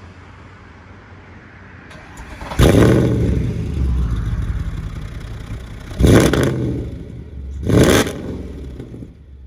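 Mercedes E63 AMG's 6.2-litre V8 revved in three sharp surges: a loud one about two and a half seconds in that holds and slowly falls away, then two short blips about six and eight seconds in.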